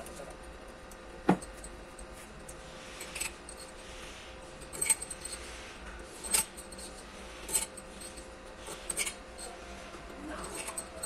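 Small metal tools and parts clinking against a bare engine block during an overhaul: one sharp knock about a second in, then light metallic clinks every second or two, over a faint steady hum.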